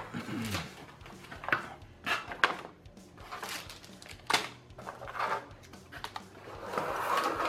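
Motherboard packaging being handled: the cardboard inner tray moved and a metal I/O shield in its plastic bag picked up and set down, giving a series of short knocks and rustles.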